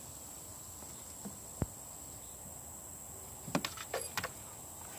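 A chained puppy jumping about. Its chain and paws give one sharp click about a second and a half in, then a quick cluster of clinks and scuffs about three and a half seconds in, over a steady high insect drone.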